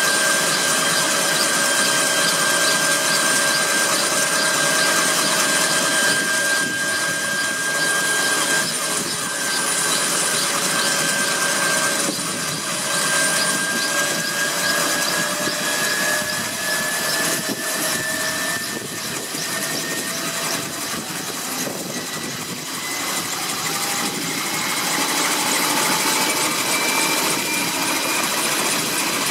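Kaman K-MAX helicopter running on the ground with its intermeshing rotors turning, its single turboshaft engine giving a steady whine over dense engine and rotor noise. From about halfway through, the whine slowly rises in pitch as the engine and rotors speed up.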